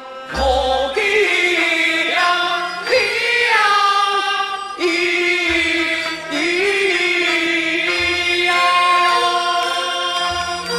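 Teochew opera music: a long, sliding melodic line held over a traditional Chinese orchestra, with a few low thuds along the way.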